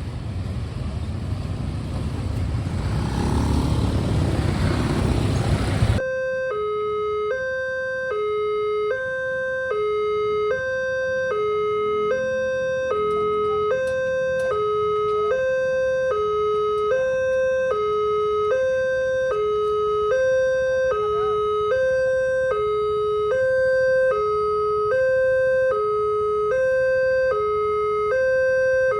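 A loud rushing noise swells for about six seconds and then cuts off suddenly. A railway level-crossing warning alarm takes over: an electronic two-tone signal that switches steadily between a higher and a lower pitch about once a second, warning that a train is approaching and the barrier is closing.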